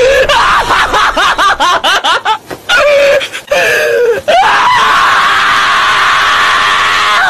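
A dog, a Shiba Inu type, screaming in rapid high-pitched rising-and-falling yelps while restrained on a vet's examination table, its paw being handled. About halfway in, a long, loud held scream takes over.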